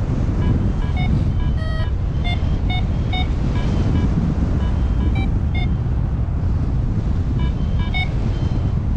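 Wind buffeting the microphone in flight, with a paragliding variometer beeping over it in short, quick tones of shifting pitch. These are its climb tones, the signal that the glider is rising in lift. The beeps pause for about a second past the middle, then resume.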